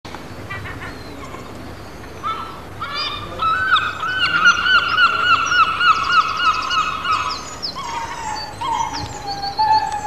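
Gulls calling: a long run of rapid repeated yelping calls, about four a second, followed by a few longer drawn-out calls near the end.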